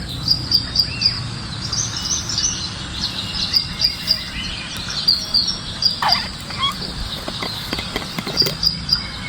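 Small birds chirping busily in a rural morning chorus, rapid high chirps several times a second, with a longer whistled call falling in pitch about six seconds in.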